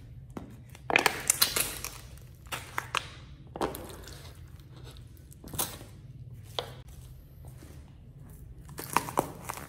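Sneaker soles stamping on plastic cups of jelly. The thin plastic cracks and crunches in a cluster of sharp crackles about a second in, then in scattered single crunches. Near the end a few more cracks come as a small round vegetable is crushed underfoot.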